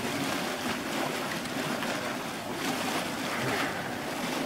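Wallender Born ('Brubbel') cold-water geyser, a gas-driven mofette spring, erupting as a low foaming surge in its basin: a steady rushing, churning water sound.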